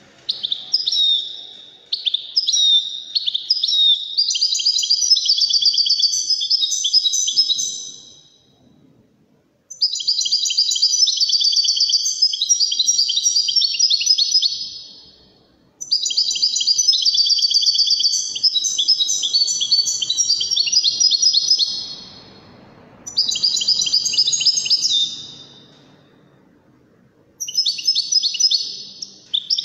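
Caged European goldfinch singing: long phrases of rapid twittering and trills, broken by short pauses of a second or two, about six bursts in all.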